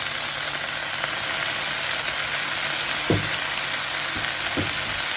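Water spinach sizzling in hot oil in a frying pan as it is stir-fried with vinegar just added: a steady hiss. A few short knocks of the cooking spoon against the pan come near the end.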